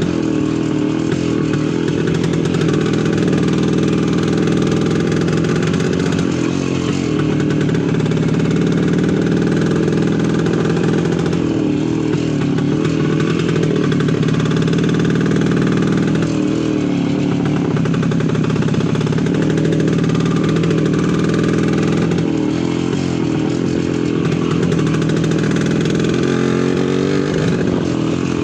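Voskhod 3M motorcycle's single-cylinder two-stroke engine running steadily, its pitch dipping and rising every few seconds as the throttle eases off and opens again.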